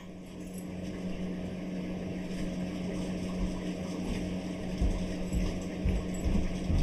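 A steady low hum at one constant pitch, with soft low thumps and knocks coming in about halfway through.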